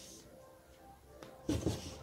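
Two quick low thumps, close together, about one and a half seconds in, over faint room noise.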